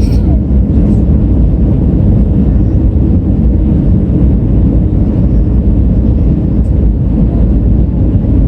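Airbus A320 airliner's steady rumble of engines and rushing air, a low, even noise with no rise or fall.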